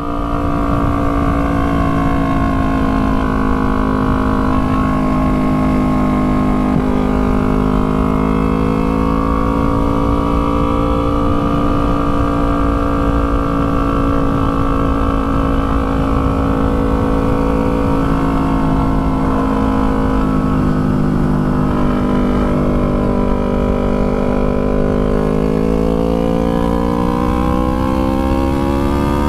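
Yamaha R3's 321 cc parallel-twin engine under way at fairly steady revs, the pitch climbing slowly over the last few seconds.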